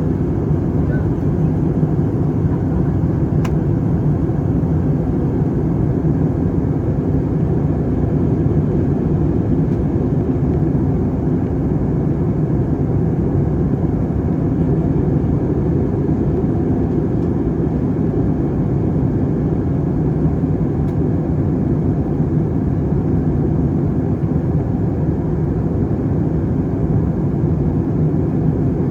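Steady low drone of a jet airliner's cabin in flight: engines and rushing air, even and unchanging.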